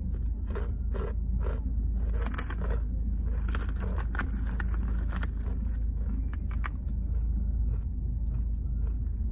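Close-up crunching of Blue Heat Takis rolled corn tortilla chips being bitten and chewed: a run of crisp crunches, thickest in the middle, over a steady low rumble.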